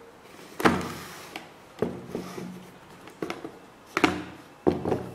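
A pair of canvas Vans Era sneakers with rubber soles being handled and set down on a cardboard shoebox and wooden floor: about five dull knocks, with the loudest about two-thirds of a second and four seconds in.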